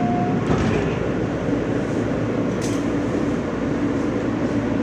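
R160 subway car heard from inside, running on the rails with a steady rumble, and a short hiss about two and a half seconds in.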